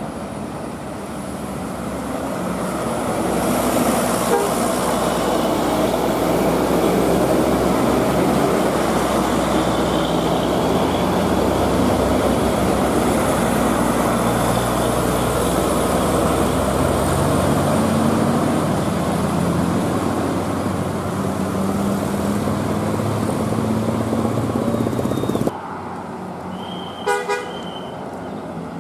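Bus driving by with its telolet basuri multi-tone musical horn sounding over engine and road noise. Near the end the sound cuts abruptly to a quieter scene with a short horn beep.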